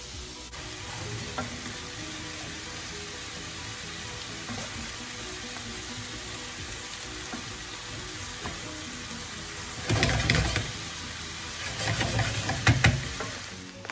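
Ground beef and zucchini cubes sizzling in a frying pan while being stirred with a wooden spatula. There are louder bouts of scraping and stirring about ten seconds in and again near the end.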